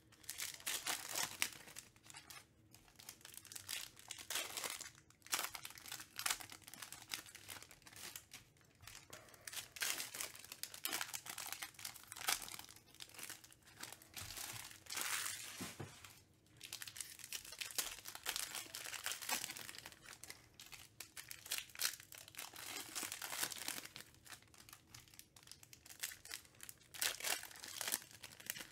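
Foil trading-card pack wrappers crinkling and tearing as packs are ripped open, in repeated bursts with short pauses.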